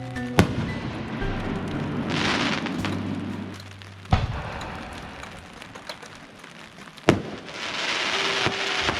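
Aerial fireworks shells bursting: three sharp bangs roughly three to four seconds apart, with stretches of crackling from the stars in between and near the end. Background music with held notes plays underneath.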